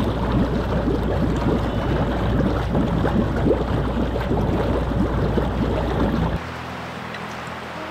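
Hot tub jets bubbling hard, a dense churning gurgle over a steady low pump hum. It cuts off suddenly about six seconds in.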